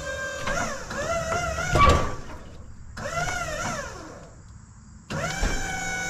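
A Wood-Mizer sawmill's hydraulic log turner rolling a large black cherry log, its pump whining in three spurts with the pitch sagging and rising under the load. There is a heavy clunk about two seconds in as the log shifts on the bed.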